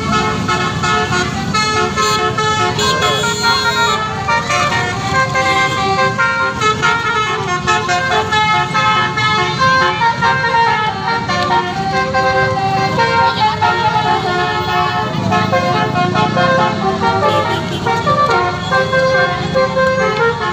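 A 'telolet' horn, the multi-tone musical air horn fitted to Indonesian buses, playing a continuous melody of held notes that step from pitch to pitch, several tones sounding together. A low vehicle rumble runs underneath.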